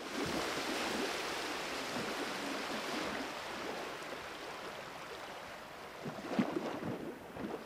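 Shallow river water washing softly at the shoreline as people wade in it, a steady hiss of water with a few faint sharper sounds near the end.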